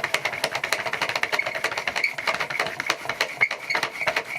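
Homemade washing-machine-motor generator being turned by hand in quarter turns, its mechanism clicking rapidly, several clicks a second, as it charges a capacitor.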